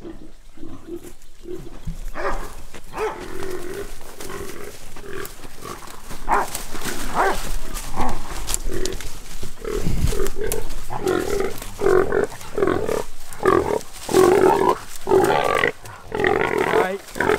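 A caught hog grunting and squealing in repeated bursts while dogs hold it, growing louder and more frequent in the second half.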